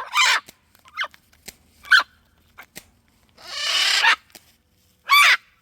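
Parrots squabbling over food: several short squawks, then a longer harsh screech about three and a half seconds in, and another squawk near the end.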